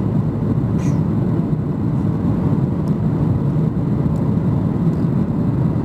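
Boeing 737-800 cabin noise on final approach, heard from a window seat over the wing: a steady low rumble from its CFM56-7B engines and the airflow over the lowered flaps.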